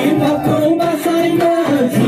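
Loud, continuous music with a singing voice over it.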